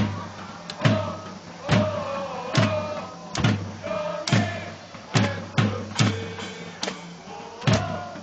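Football supporters' bass drum beating a steady rhythm, a little over one beat a second with occasional double strikes, while the supporters' group sings a chant over it.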